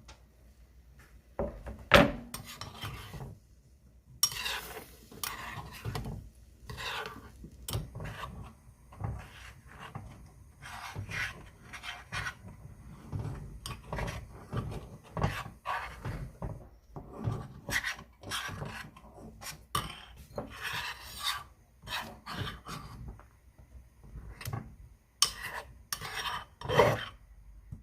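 Irregular scraping and rubbing strokes of a kitchen utensil, about one or two a second, with a sharp knock about two seconds in and two louder strokes near the end.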